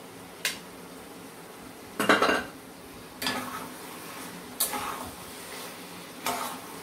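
A metal spatula scraping and knocking against a kadai as food is stirred, about five strokes roughly a second and a half apart, the loudest about two seconds in.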